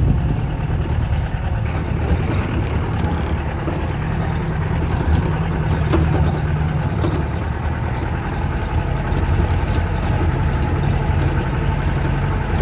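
Jeep engine running steadily on an off-road drive, a continuous low drone.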